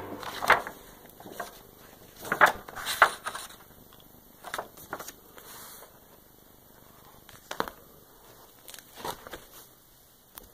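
Pages of a Moleskine sketchbook being turned and handled: a scattering of short paper rustles and soft taps, the loudest a few seconds in.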